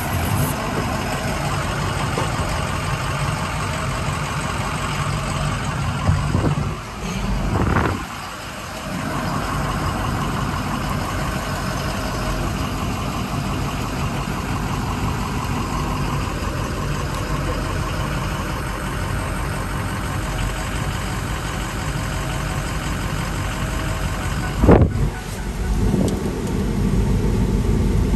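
Ford 6.0L Power Stroke V8 diesel idling steadily. A single sharp knock sounds about 25 seconds in, with light handling noises around it.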